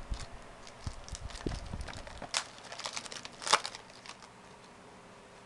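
Trading cards and their packaging being handled: a run of light crinkles and clicks, with a sharper snap about three and a half seconds in, then it stops.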